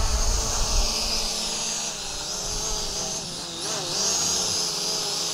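Eachine EG16 quadcopter's brushed coreless motors and propellers whirring as it hovers close by: a steady high whine that wavers a little in pitch around the middle.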